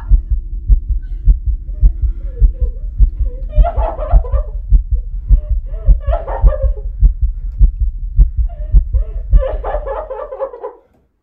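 Fast, heavy heartbeat sound effect, about three thumps a second over a low drone, with a woman's distressed voice breaking in three times. It all cuts off suddenly near the end.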